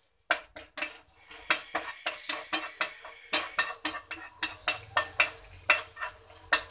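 Wooden spatula knocking and scraping against a nonstick frying pan in quick, even strokes, about four a second, stirring grated ginger and green chili frying in oil.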